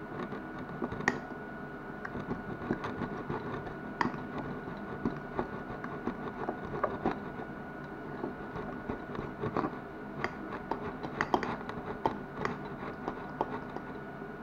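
A utensil stirring a thick egg-and-flour mixture in a glass bowl, with irregular clicks and scrapes against the glass.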